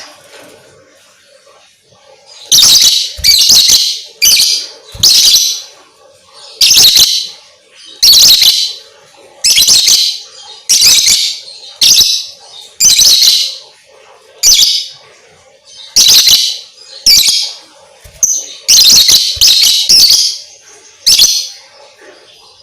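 A lovebird calling in loud, shrill chirps, one burst about every second with short pauses between.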